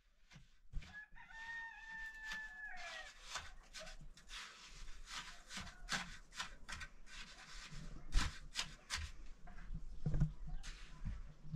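A rooster crows once about a second in, a long held call that drops at the end. After it come many sharp knocks and scrapes of a trowel and concrete blocks as the top course of a block wall is laid.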